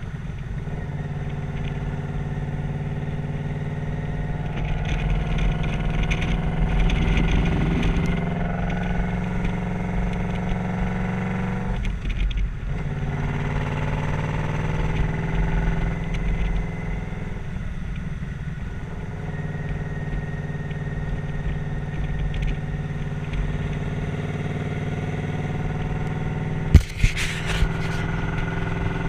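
2006 Yamaha Royal Star's V4 engine running steadily at cruising speed, with wind rushing over the microphone. The engine note briefly drops twice, and there is one sharp knock near the end.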